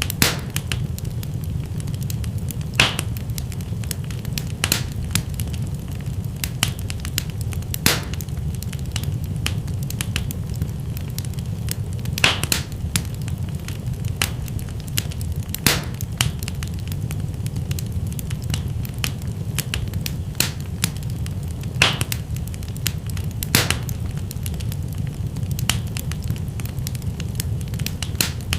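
Wood fire burning in a fireplace: a steady low rumble with sharp crackles and pops scattered irregularly through it, a handful of them louder snaps.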